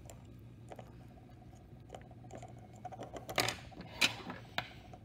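Light clicks and taps of metal tools on a glass watch glass and bench while a lump of sodium metal is cut, with a quick run of clicks about three and a half seconds in and the sharpest click just after.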